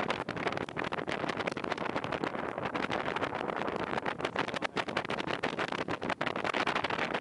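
Twin OMC 5.0-litre V8 engines of a 1987 Bayliner 2850 Contessa flybridge cruiser running steadily with the boat on plane, heard from the open flybridge with wind gusting on the microphone.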